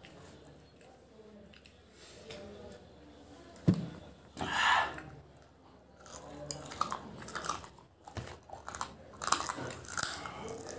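Close-up chewing and biting of chicken pieces by mouth, with small wet smacks and clicks. A sharp tap a little over a third of the way in, followed at once by a short hiss-like sound.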